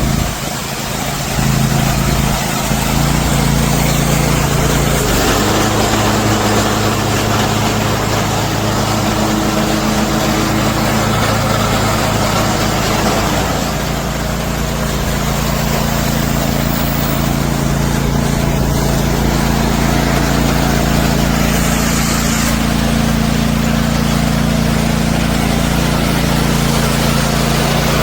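Riding lawn mower engine running steadily as the mower is driven, its note shifting about five seconds in and again near the middle.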